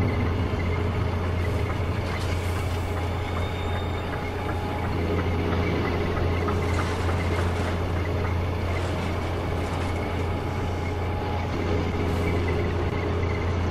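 Steady low engine rumble of a heavy machine running, like a crawler crane's engine, as the model crane moves into place, with a few faint clicks.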